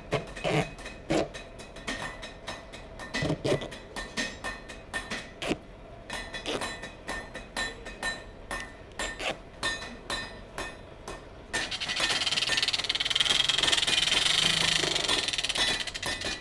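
A series of light clicks and knocks, then about three-quarters of the way in a forge blower starts up and runs with a steady rush of air through the dryer-vent duct.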